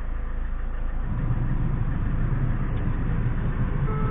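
Citroën C5 2.0 HDi four-cylinder turbodiesel idling, heard from inside the cabin, a steady low rumble that grows a little louder about a second in. It is running with diesel fuel mixed into its crankcase oil as a flush to clear carbon and sludge from the engine.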